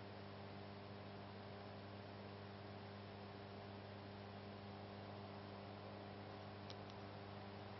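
Faint steady electrical mains hum, a low buzz held on one pitch with its overtones, over a soft hiss, with two faint ticks near the end.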